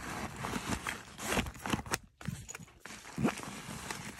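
Rustling and crinkling of a nylon travel bag as plastic items are pushed into its side pocket, with irregular scrapes and small clicks of handling.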